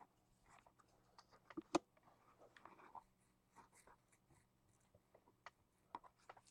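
Faint rustling, scraping and light clicks of trading cards and their holders being handled, with one sharper click a little under two seconds in.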